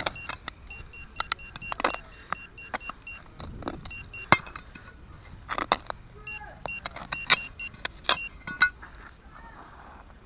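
Metal detector giving runs of rapid, short high beeps over a buried metal target, amid clicks, scrapes and metallic clattering as soil and scrap such as a tin can are dug through and handled.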